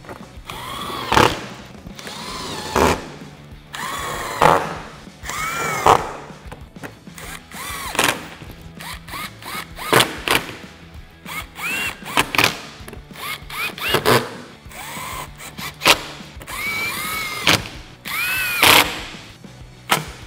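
Cordless drill/driver running in a dozen or so short bursts, each whine rising as it spins up and falling away as it stops, driving 7 mm screws into a plastic belly pan.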